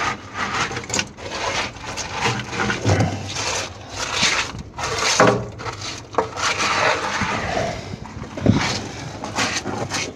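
Loose cement rubble being scraped and shifted by hand in a steel boat's keel bilge: irregular scraping, rubbing and knocking of the broken lumps.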